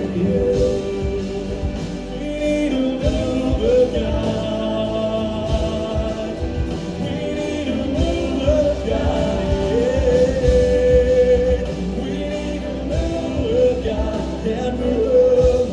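Worship song with a full band playing and a voice singing melodic lines without clear words.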